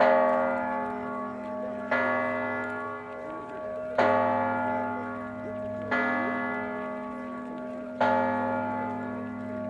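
A large bell tolling slowly, one stroke about every two seconds, each stroke ringing on and fading under the next.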